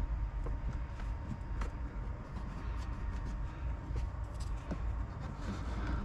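Scattered light clicks and taps from hands working on a car's interior trim, over a steady low rumble of handling noise on the microphone.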